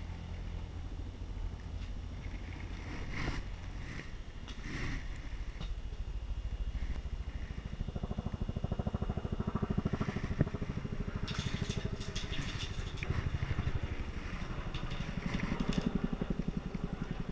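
An engine running steadily, a low pulsing hum that gets louder about halfway through, with clicks and rattles from gear being handled.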